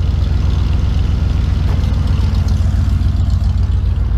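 Ford F-150's 5.0-litre V8 idling steadily through Cherry Bomb exhausts, a low, even exhaust rumble heard close to the tailpipe.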